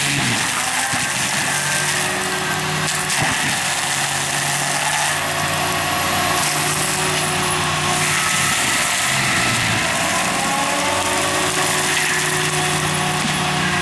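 Barko 930 forestry mulcher at work: its diesel engine running under load while the Fecon FGT9021 mulching head's spinning toothed drum shreds brush, making a loud, steady grinding noise. The engine pitch dips briefly near the start and again about nine seconds in.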